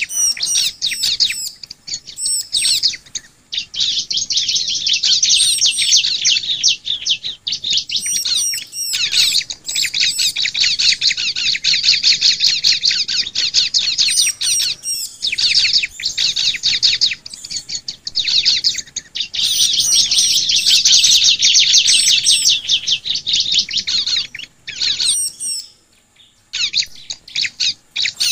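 Ciblek (bar-winged prinia) song: long runs of very rapid, high-pitched chirping trills, with sharper high chirps over them, broken by short pauses every few seconds.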